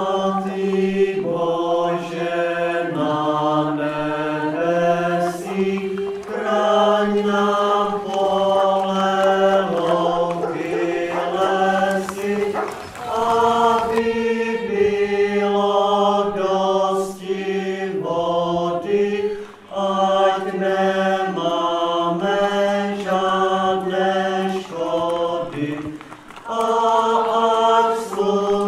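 A group singing a song together with accompaniment, in long held notes that step from pitch to pitch over a low sustained part, pausing briefly between phrases.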